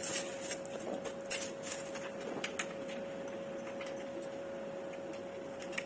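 Scattered small clicks and ticks of hand-assembly hardware: an Allen key working a screw at a corner joint of a dining-table frame. A faint steady hum runs underneath.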